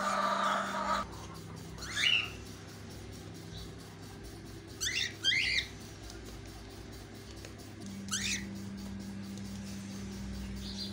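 Cockatiel giving short, high whistled chirps: one about two seconds in, two close together around five seconds, and one near eight seconds, over a steady low hum.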